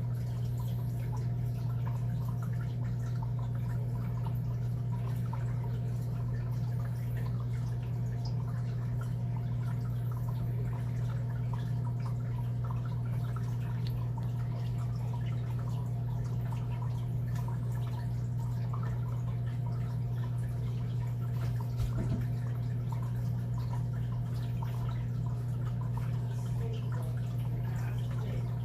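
Steady low electrical hum, with faint scattered small ticks over it and one slightly sharper tick near the end.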